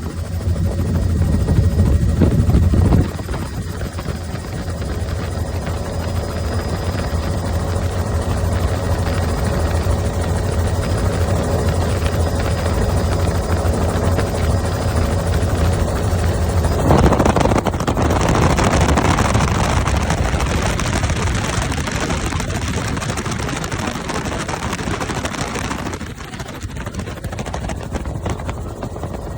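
Helicopter running: a steady low drone from the rotor and engine. It drops abruptly about three seconds in, swells into a louder rushing noise a little past the middle, and eases off near the end.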